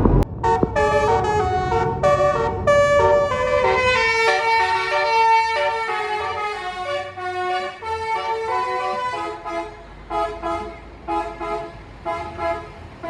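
Basuri telolet horn on a tour bus playing a multi-note melody, its horn tones stepping from pitch to pitch. A low engine rumble sits under the first few seconds, then fades. Near the end the tune breaks into short separate toots.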